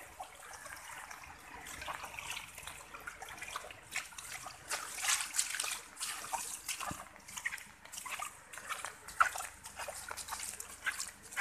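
Shallow floodwater running over a concrete lane, trickling and sloshing, with many small irregular splashes and one sharper splash about nine seconds in.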